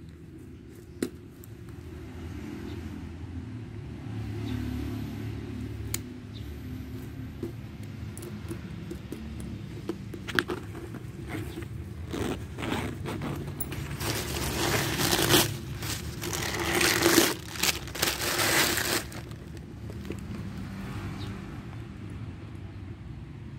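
A leather sling bag being handled: a few sharp clicks from its metal hardware, then several seconds of loud scraping and rustling in the second half as the bag is worked open. A steady low hum runs underneath.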